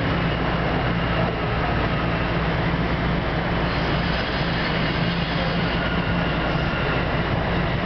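Bombardier Toronto Rocket subway train heard from inside the car while running: a steady rumble of wheels and running gear with a low hum underneath.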